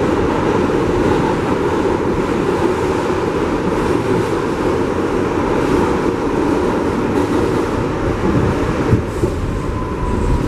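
New York City subway train in motion, a steady loud rumble of wheels on the rails.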